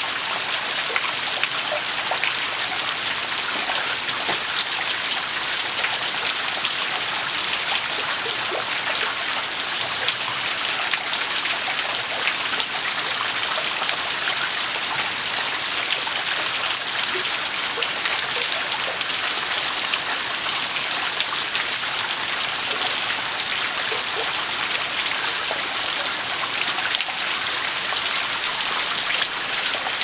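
River water flowing steadily: an even rush with many small splashes and drips throughout.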